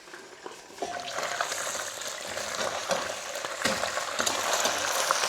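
Food sizzling as it fries in a pan, with the light clicks and scrapes of a utensil stirring it; the sizzle comes up about a second in.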